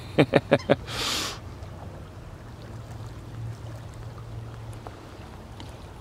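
A few short spoken sounds and a brief hiss in the first second or so, then quiet outdoor ambience with a faint, steady low hum.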